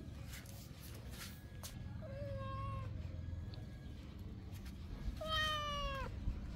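Cats meowing twice: a short meow about two seconds in, then a longer, louder one that falls in pitch about five seconds in. The cats are begging for food held above them.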